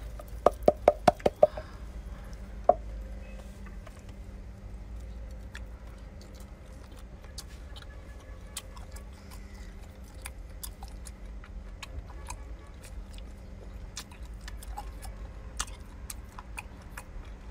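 A tin can rapped about six times in quick succession, each a sharp metallic tap with a short ring, as chili flakes are shaken out of it, then one more knock a second later. After that only faint scattered clicks over a steady low rumble.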